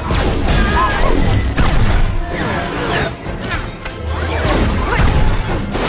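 Action-film soundtrack: dramatic music mixed with crashes and sweeping whooshes over heavy bass.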